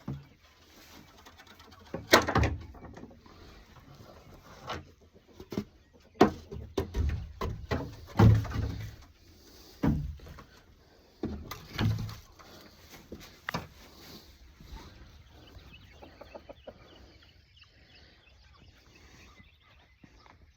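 Backyard hens clucking, broken by several loud knocks and bumps scattered through.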